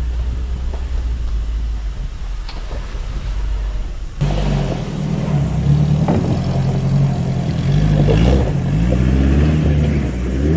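Mitsubishi L300 Delica van's engine working uphill over a rocky 4WD climb. It holds a steady low rumble at first; after about four seconds it turns louder, its note rising and falling with the throttle. A couple of sharp knocks come through partway up.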